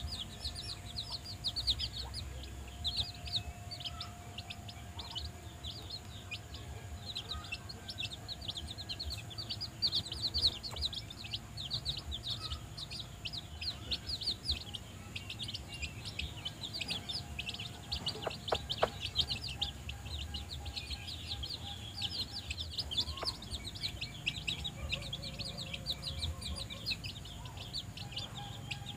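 A brood of young chicks peeping without pause: many short, high, downward-sliding chirps every second.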